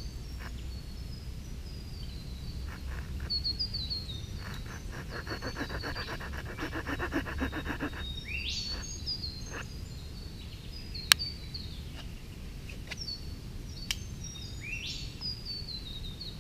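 Small saw blade of a Swiss Army knife cutting a notch into a wooden bow-drill hearth board: a few seconds of quick, rasping back-and-forth strokes between about 4 and 8 seconds in. Birds chirp throughout, with a rising whistled call twice, and two sharp clicks come in the second half.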